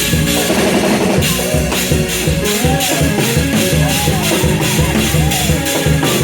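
Upbeat church praise music with a band playing: a steady shaking percussion beat, about four strokes a second, over bass and drums, with a voice or instrument sliding in pitch through the middle.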